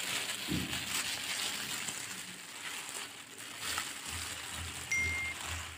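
Thin plastic bag crinkling and rustling as it is handled and pulled off the bowl. A short high beep sounds about five seconds in.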